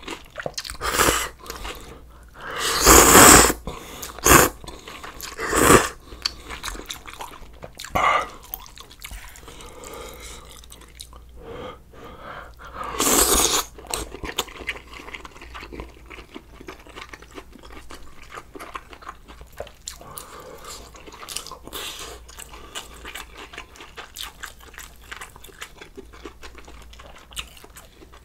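A person slurping ramen noodles from a sausage stew and chewing: several loud, short slurps in the first half, the longest about three seconds in and another near the middle, then a long stretch of quieter chewing.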